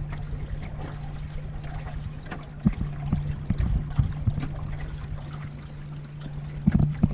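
Small boat's motor running with a steady low hum, water lapping along the hull, and a few short knocks.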